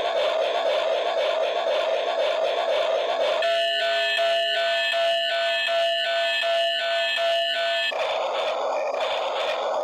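Toy train running with a steady whirring, rattling mechanical noise. From about three and a half seconds in to about eight seconds, an electronic tune of evenly pulsed tones, a little under two a second, takes over before the whirring returns.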